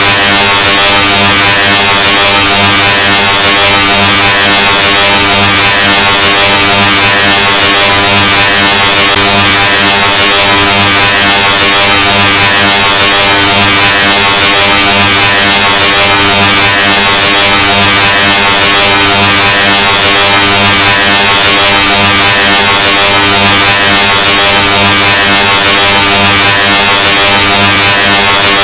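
Deliberately over-amplified, heavily clipped 'Loudness 2.0' sound effect: a harsh, distorted buzzing drone held at full volume without a break.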